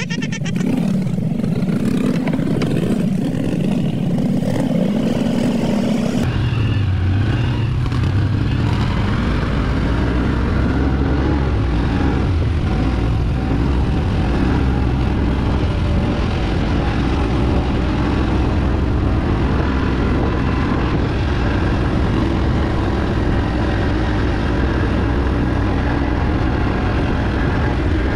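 Can-Am ATV engine running steadily while riding. About six seconds in the sound changes abruptly to a lower, deeper engine note.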